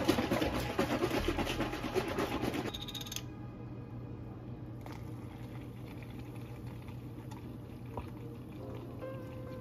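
Liquid poured into a plastic cup, a dense splashing rush for nearly three seconds that then stops.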